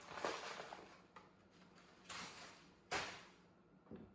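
Packing material being handled and pulled from a wooden shipping crate: rustling and scraping in four short bursts, the first and longest at the start.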